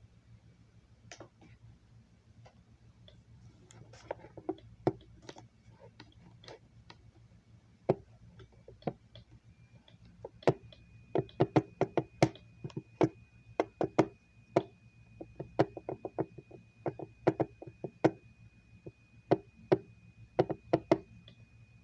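Irregular sharp clicks and taps, a few at first and then coming thick and fast from about halfway, over a steady low hum. A faint high steady tone comes in about halfway.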